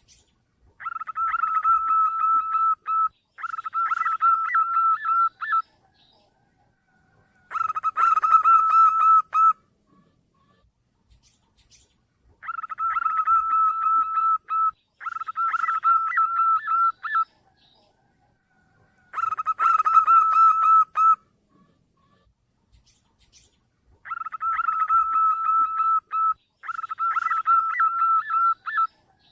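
Zebra dove (perkutut) cooing in phrases of rapid trilled notes, each about two seconds long. The phrases come in a repeating pattern of a pair of phrases, then a single one, with a few seconds of silence between groups.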